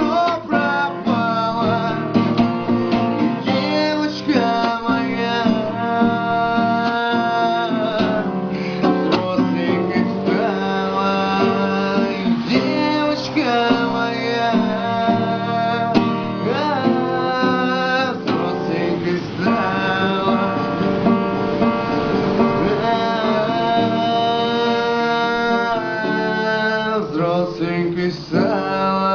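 Song performed with acoustic guitar accompaniment: a man singing over plucked and strummed guitar.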